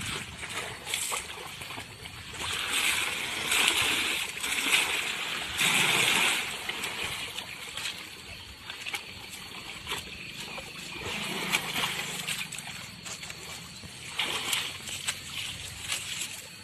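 Baby elephant splashing in water: irregular splashes and sloshing, loudest about three to four seconds in and again around six seconds in.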